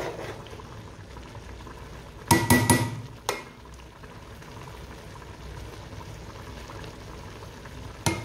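Metal spoon knocking and scraping against a large aluminium pot while mixing steaming pulao rice: a cluster of clanks a little over two seconds in, a single knock about a second later and another near the end, over a faint steady hiss from the pot as the last of the water cooks off.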